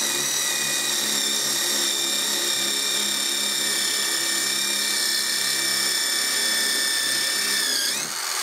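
DeWalt XR cordless impact driver at top speed, driving an 8 mm multi-material hex-shank masonry bit into brick: a steady high motor whine that dips in pitch near the end. The bit goes through the brick easily.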